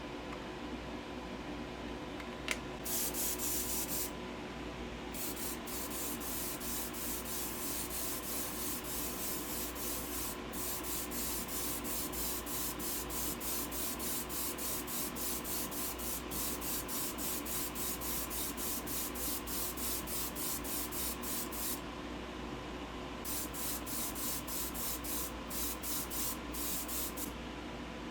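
Airbrush spraying light-coloured primer onto a small diecast car body. The spray hisses in rapid short pulses with a couple of brief pauses, over a steady hum.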